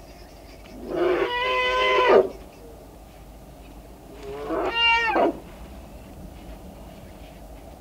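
African elephant calling twice, each call a loud, steady-pitched cry rich in overtones. The first lasts about a second and a half and the second about a second.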